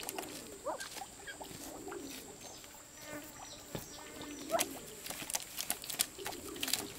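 Geese shut in woven bamboo baskets giving short soft calls, some rising in pitch, among scattered clicks and rustling as they shift against the bamboo.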